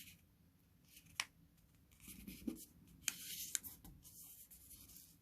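Square of origami colour paper being folded in half and creased by hand: a few crisp paper clicks, then a soft rustle as the paper is handled and pressed.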